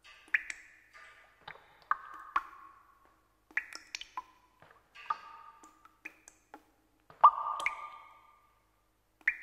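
Outro music of short, struck, pinging notes at irregular intervals, each ringing briefly and dying away. The longest and loudest note comes about seven seconds in.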